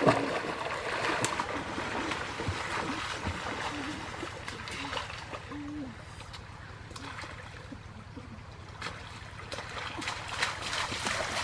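Water splashing and sloshing as people wade and grope with their hands in a shallow stream, louder at the start and again near the end as they splash through the water.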